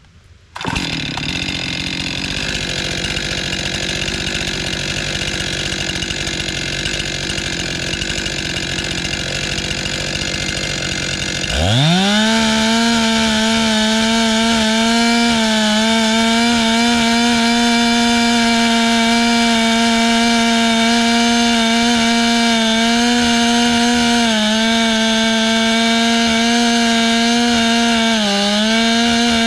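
Two-stroke chainsaw for milling wood. It starts running about half a second in with a rough, lower sound, then revs up at about eleven seconds to a steady full-throttle whine. The pitch sags briefly twice near the end.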